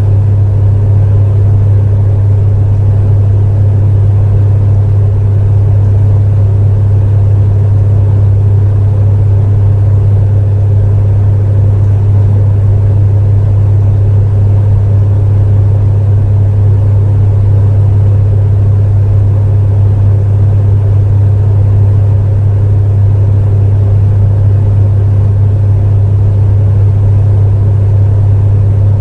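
Space heater running steadily: a loud, constant low hum with a fainter airy rush above it.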